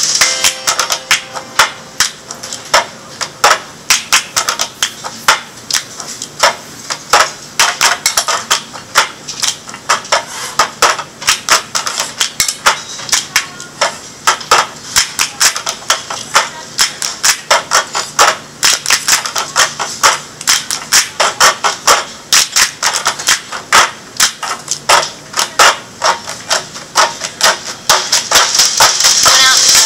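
A long run of sharp, irregular knocks and taps, a few a second, varying in loudness.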